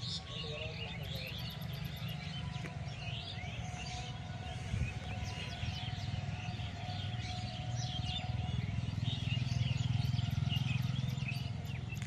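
Many small birds chirping and twittering at once in a dense, continuous chorus, over a steady low rumble.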